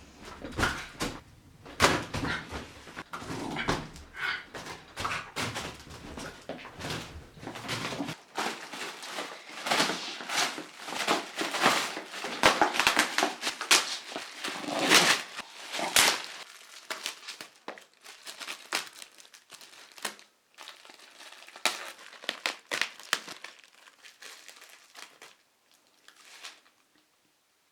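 Irregular crinkling and rustling with many sharp clicks and knocks, busiest in the first half and thinning out and fading over the last few seconds.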